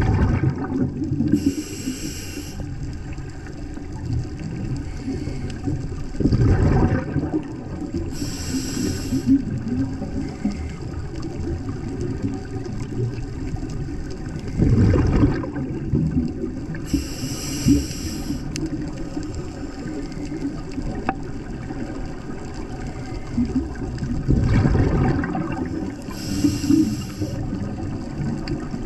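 Scuba diver breathing through a regulator underwater: a short hissing inhalation about every eight seconds, each followed a few seconds later by a louder, bubbling burst of exhaled air. A steady underwater hum lies beneath.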